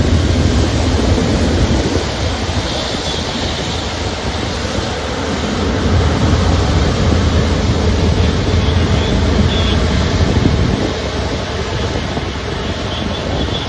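Jet engines of an Airbus A350 (Rolls-Royce Trent XWB) running at taxi power: a steady rushing noise with a deep rumble underneath.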